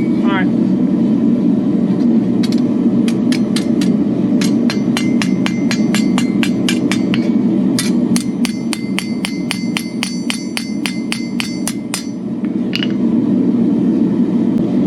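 Hand hammer striking steel on an anvil while forging a flint striker: runs of quick, ringing blows, several a second, with short pauses just after the start and again near the end. A steady low roar runs underneath.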